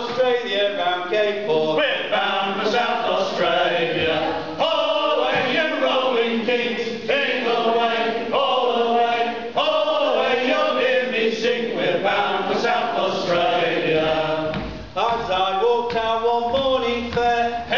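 A group of men singing a sea shanty together in chorus, in phrases broken by brief pauses.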